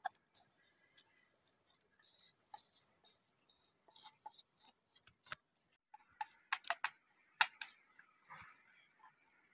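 Flat wooden stick tapping and scraping in a mortar as chili paste is stirred and scooped out: scattered light clicks, with a quick run of louder taps past the middle, over a faint steady high hiss.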